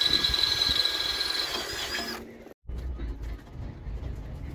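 Cordless drill running with a steady high whine, drilling into a backplate clamped in a bench vise; it winds down and stops about halfway through. After that, a low wind rumble on the microphone with faint small clicks.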